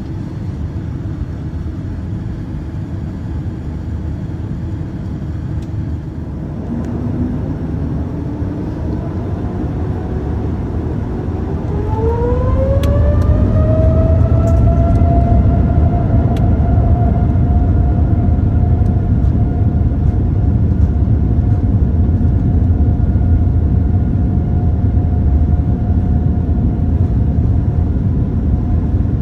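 Boeing 787-9's General Electric GEnx-1B turbofan engines heard from inside the cabin beside the wing. A steady rumble while taxiing, then a whine that climbs over several seconds as the engines spool up to takeoff thrust. It levels into a steady high tone over a louder rumble during the takeoff roll.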